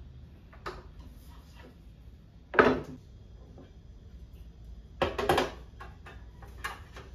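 Parts of a white metal IKEA Variera shelf insert knocking and clattering against each other and the table as the frame is fitted onto the perforated shelf panel: one sharp knock about two and a half seconds in, a quick cluster of knocks about five seconds in, and lighter taps between.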